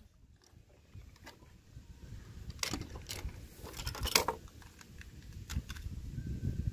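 Plastic toy vehicles and figures clicking and knocking together as they are handled on a wooden table: a few scattered sharp taps over low handling noise.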